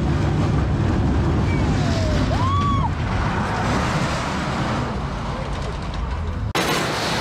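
Alpine coaster sled running down its rail track: a steady low rumble of the wheels mixed with wind noise, with a brief rising and falling whine about two and a half seconds in. The rumble cuts off abruptly near the end.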